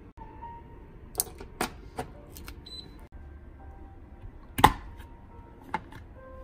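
Several sharp clicks and knocks from handling an Instant Pot electric pressure cooker, irregularly spaced, the loudest about two-thirds of the way through, over quiet background music.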